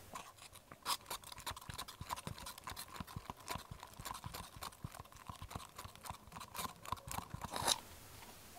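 A stirring stick clicking and scraping against the walls of a thin plastic cup as liquid mold silicone is mixed: quick, irregular taps that stop suddenly near the end.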